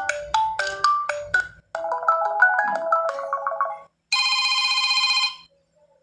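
Stock Android ringtones previewed one after another through the phone's speaker as the selection moves down the list: a short melody breaks off about a second and a half in, a quicker run of notes follows, then from about four seconds a buzzy repeated electronic tone sounds for about a second and a half and stops.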